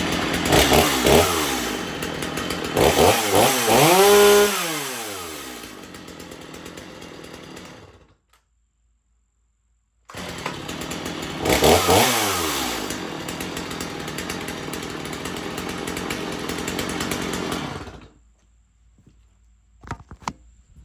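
Stihl MS 250 two-stroke chainsaw running, revved up and down a few times and then easing back toward idle. After a short silence it runs again with one rev and cuts off sharply near the end.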